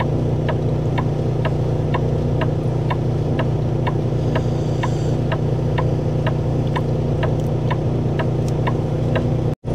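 Semi truck's engine idling inside the cab, with the turn-signal flasher clicking steadily about twice a second while the right blinker is switched on for a trailer light check. The sound cuts out for a split second near the end.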